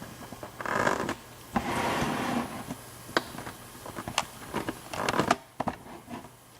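Lock picking tools and a euro profile cylinder being handled: short metallic scrapes about a second, two seconds and five seconds in, with several sharp light clicks in between.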